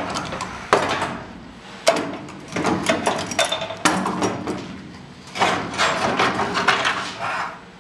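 Steel car body panel being worked and handled: about half a dozen irregular sharp metallic knocks, with rattling and scraping between them and brief ringing after some strikes.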